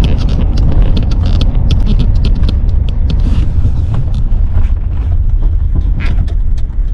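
Truck on the road towing a dump trailer loaded with crushed asphalt: a steady low rumble with frequent rattles and clicks.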